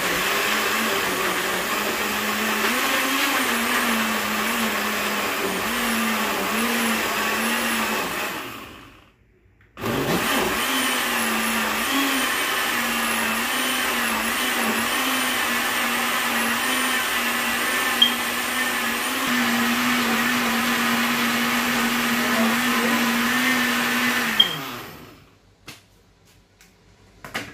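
Electric blender running, pureeing peeled beans with peppers, onions and water into moi moi batter. It runs about eight seconds, winds down and stops, then starts again a second later and runs about fifteen seconds more before winding down. Its motor pitch wavers at first, then holds steadier.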